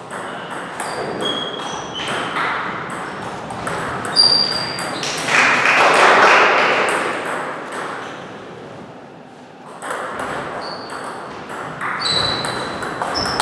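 Table tennis balls clicking off bats and tables in quick succession, each hit leaving a short high ping, with hits from several tables mixing in the hall. About five to seven seconds in a louder stretch of rushing noise rises over the clicks.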